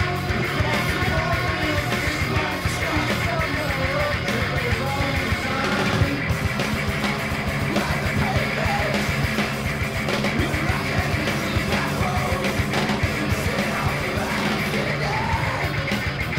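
Noise rock song: loud, dense band playing with distorted guitars, bass and steady drums, and a yelled vocal over it, in a rough-sounding recording.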